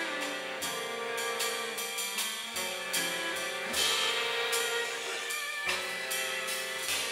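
Live quartet of saxophone, violin, cello and drum kit playing together: sustained saxophone and string notes over a drum-kit pattern of drum and cymbal hits, with a brighter cymbal crash about four seconds in.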